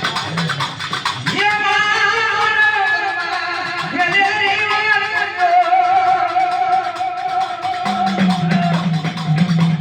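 Music: a long, drawn-out melodic line with a wavering pitch, over a steady beat, with a lower held note coming in near the end.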